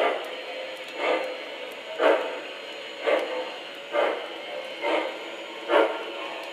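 Sound-equipped MTH model L&N Berkshire steam locomotive chuffing slowly and evenly, about one chuff a second, over the faint rolling of the train.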